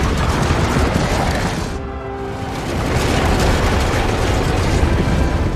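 Film battle soundtrack: music over a heavy, booming low rumble of a massed army on the move. About two seconds in the din thins to a few held notes, then the full rumble returns.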